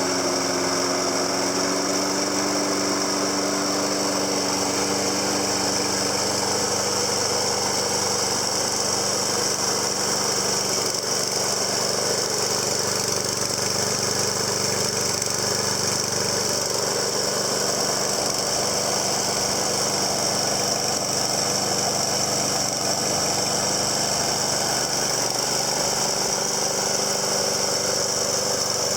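Snapper self-propelled mower's Briggs & Stratton 6.75 overhead-valve engine running steadily, its pitch rising slightly about two seconds in.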